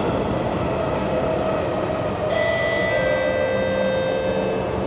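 SMRT C751B train running, heard inside the carriage: a steady rolling rumble. About two seconds in, a high whine of several steady tones joins it and fades out near the end.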